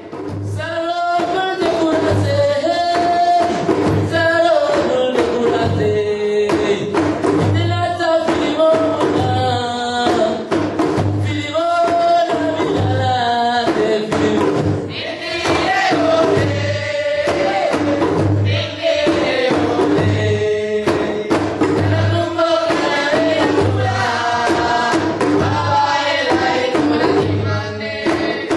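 Several voices singing a Mandinka or Djola song together over traditional Casamance serouba hand drums, with a regular low drum beat underneath.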